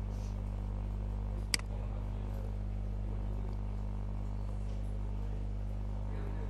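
Steady low electrical hum, with a single sharp mouse click about one and a half seconds in.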